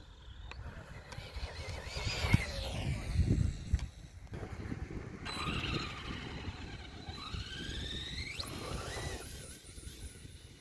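Arrma Senton 3S RC short-course truck's brushless motor and drivetrain whining at high pitch, the pitch changing with the throttle. It sweeps down steeply about two seconds in and climbs sharply again around eight seconds in, over a low rumble of tyres on grass.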